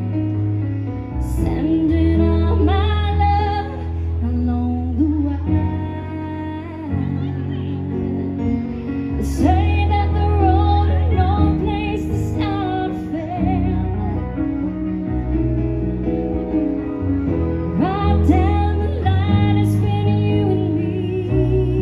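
Live band playing: a woman sings lead over electric guitar, keyboards and drums, with occasional cymbal crashes.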